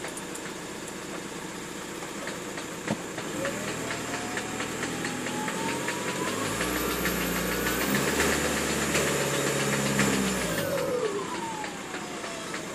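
VW Golf Mk4 1.9 TDI PD150 four-cylinder diesel engine revved up slowly while stationary, held, then let fall back toward idle, with a whine that rises and falls with the revs. A crackle of short ticks runs through it, densest at the higher revs: the cracking noise that the owner traces to the 02M gearbox or clutch, cause not found.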